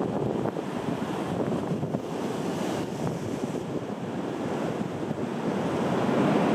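Pacific Ocean surf breaking in a steady rush, with wind.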